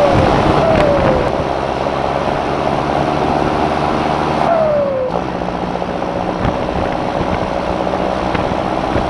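John Deere 6420 S tractor's turbocharged diesel engine running, with a turbo whistle that falls in pitch three times: at the start, about a second in, and around five seconds in.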